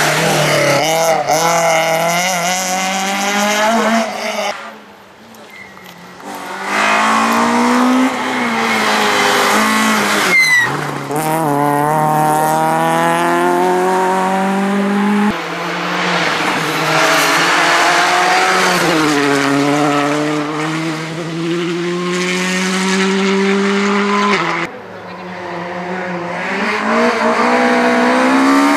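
Rally cars, small hatchbacks, driven hard past the roadside one after another, their engines revving high. The engine pitch climbs and then drops sharply at each gear change. The sound falls away briefly twice, about five seconds in and again near the end, between cars.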